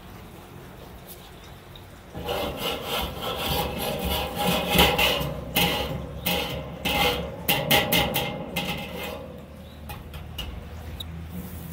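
Wire grill brush scrubbing the steel cooking grate of a Weber charcoal kettle grill: a run of quick back-and-forth scraping strokes with a metallic ring from the grate. It starts about two seconds in and stops shortly before the end.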